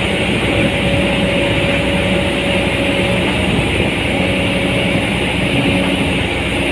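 Komatsu PC200-8 excavator's diesel engine running steadily, with a faint whine that comes and goes.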